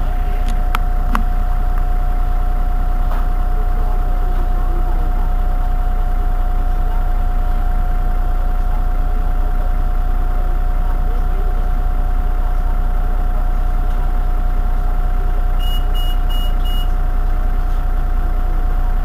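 Irisbus Iveco Citelis 18 articulated bus idling at a stop: a steady low engine rumble with a steady whine over it. About 16 seconds in, four short high-pitched beeps sound in quick succession.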